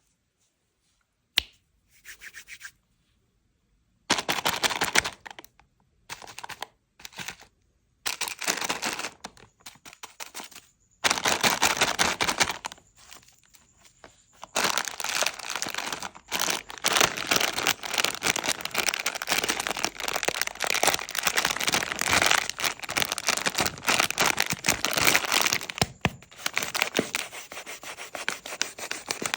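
Plastic snack wrapper being handled and opened, crinkling and crackling. It comes in short bursts with pauses at first, then runs almost continuously from about a third of the way in.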